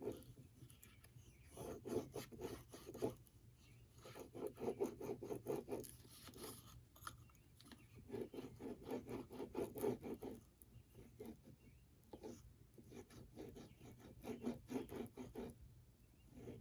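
A clogged glue bottle being worked to get it flowing again: bursts of rapid scratchy rubbing, each a second or two long, repeating every couple of seconds.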